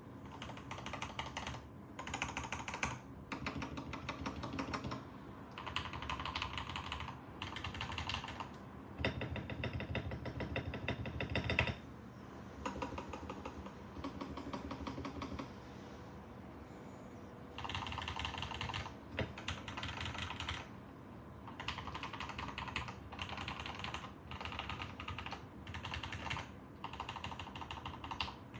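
Typing on a Tester 68 mechanical keyboard with lubed Gateron Yellow linear switches and Cherry-profile keycaps. The keystrokes come in bursts of a second or two with short pauses, with a longer fast run about a third of the way in, followed by a lighter stretch.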